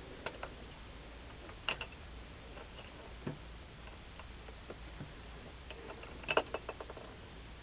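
Steady hiss from a doorbell camera's microphone, with scattered faint clicks and taps and a quick run of several clicks about six seconds in.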